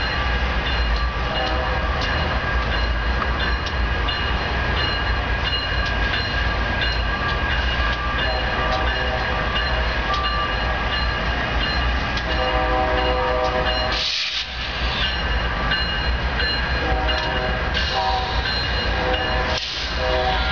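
A consist of BNSF diesel locomotives moving slowly through the rail yard: a steady low engine rumble with high-pitched squealing tones and scattered clicks. A chord of tones, like a distant train horn, comes and goes twice past the middle.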